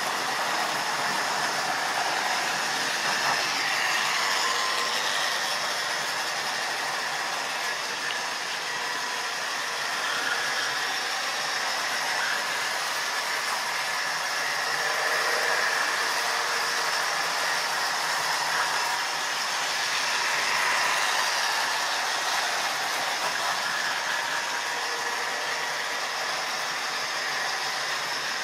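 OO-gauge model trains running on the layout: a steady electric-motor whirr and wheel-on-rail running noise that grows louder now and then as trains come near.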